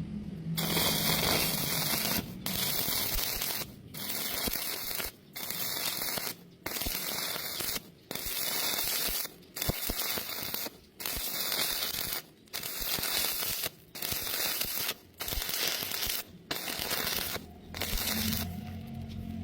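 Stick (arc) welding crackling in runs of about a second, with the arc broken and restruck roughly a dozen times in an even rhythm. This on-off stitching is how a wide gap in thin metal is bridged without burning through.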